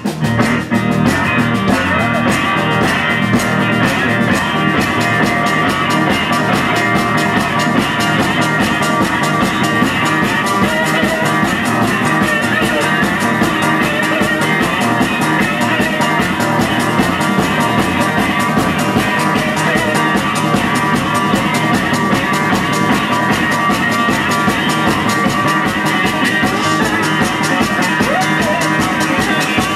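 Live band playing a fast, steady rock song with guitar and drums.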